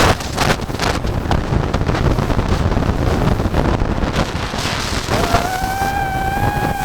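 Wind rushing over the microphone, with an FPV quadcopter's motor whine rising about five seconds in and then holding steady.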